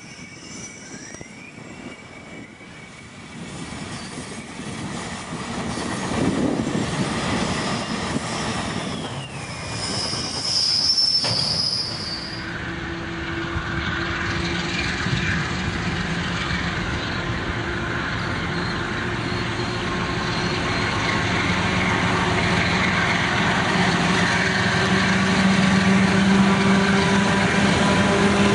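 Loaded container wagons of a freight train rolling past, with a brief high wheel squeal about ten seconds in. Then, after a cut, diesel-electric freight locomotives approach under power, their engines growing steadily louder as they draw level.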